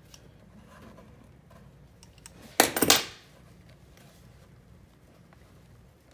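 Metal crescent wrench clinking and clattering against the bidet's water-line fitting for about half a second, a little over halfway through, as it is set on the nut to tighten it.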